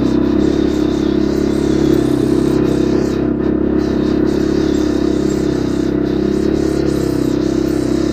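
CFMOTO ATV engine running at a steady speed under way, with a constant drone and no changes in revs.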